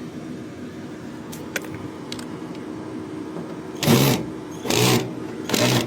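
A cordless screwdriver-drill whirring in three short bursts, about a second apart, in the second half: screws being backed out of an air-conditioner outdoor unit's access panel.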